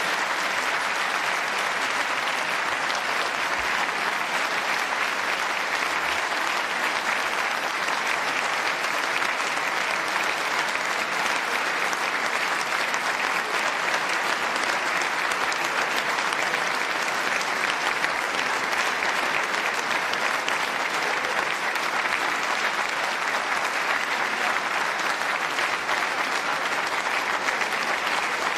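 Large audience applauding in a long standing ovation: dense, steady clapping that holds at one level without letting up.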